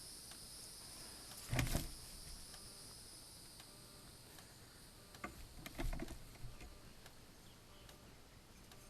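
Steady high chirring of crickets. Over it come a single dull thump about a second and a half in, then a few sharp clicks and another thump about six seconds in.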